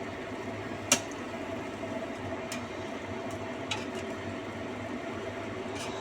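Thickened sweet-and-sour tomato sauce simmering in the pan, a steady bubbling hiss, with one sharp click about a second in and a few fainter ticks after it.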